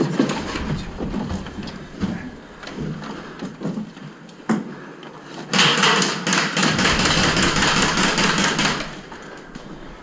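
Scattered clicks and kit-rattle of a player moving, then an airsoft gun fired on full auto for about three seconds, a rapid, even run of sharp cracks starting about five and a half seconds in.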